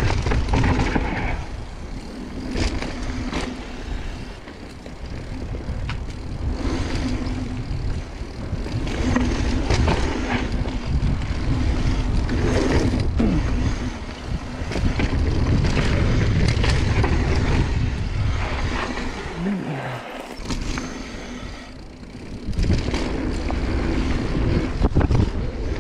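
Mountain bike riding fast down a dusty dirt singletrack: wind rumbling on the microphone over tyre noise on the dirt, with the bike rattling over bumps. The noise rises and falls with speed and eases for a couple of seconds near the end.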